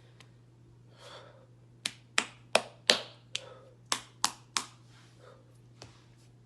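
Series of sharp hand slaps, about eight quick smacks a few per second starting about two seconds in, with one faint slap near the end.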